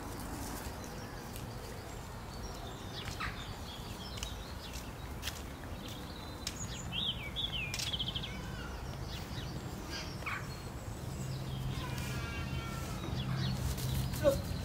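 Outdoor garden ambience with birds calling: scattered short chirps, a quick run of chirps about seven seconds in, and a rapid rattling call a little before the end, over a steady low hum.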